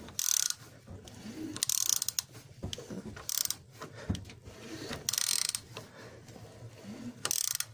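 A ratchet wrench clicking in short bursts, about five strokes roughly every one and a half seconds, as it turns the crankshaft of a Lanos 1.5 eight-valve engine over by hand. The engine is being rotated through a couple of turns to check the crankshaft and camshaft timing marks after a new timing belt has been fitted.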